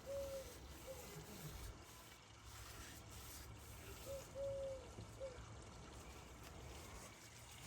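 A bird calling faintly in a garden: two low three-note phrases, the middle note the longest, one right at the start and one about four seconds in.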